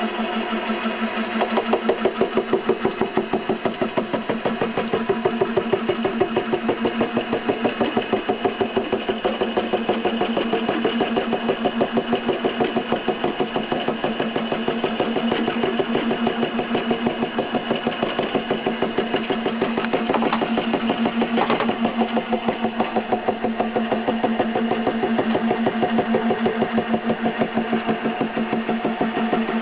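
Milling machine running with a form cutter cutting a tooth into a Delrin gear blank: a steady motor hum with a rapid, regular pulsing, and a couple of sharp clicks about two-thirds of the way through.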